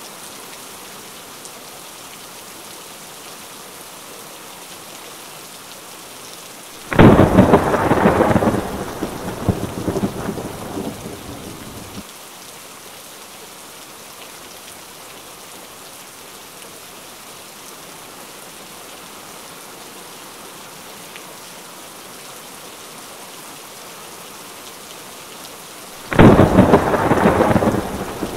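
Steady rain falling, with two loud claps of thunder. The first starts suddenly about a quarter of the way in and rolls away over about five seconds. The second breaks near the end.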